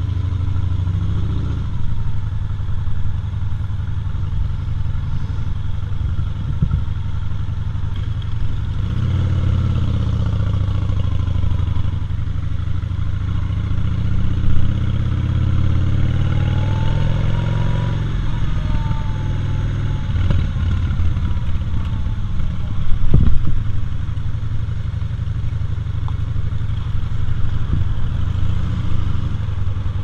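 Cruiser motorcycle engine heard from the rider's seat, running and accelerating through the gears, its pitch climbing and dropping back several times, with wind noise. A single sharp knock stands out about two-thirds of the way through.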